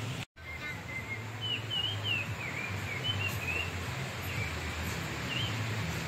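Mountain stream rushing steadily, with birds chirping short rising and falling calls over it.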